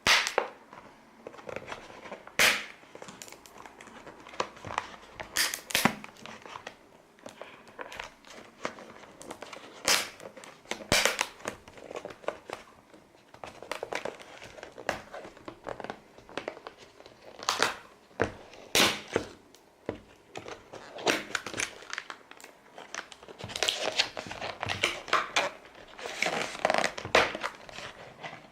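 Packaging being handled and opened: plastic and cardboard crinkling and tearing, with irregular sharp crackles and small knocks.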